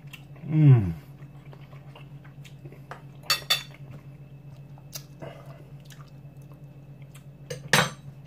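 Metal cutlery clinking on a ceramic dinner plate: two quick sharp clinks a little over three seconds in as the fork is laid down, and another clatter near the end as the knife is put aside. A man's short falling "ohh" sounds about half a second in, over a steady low hum.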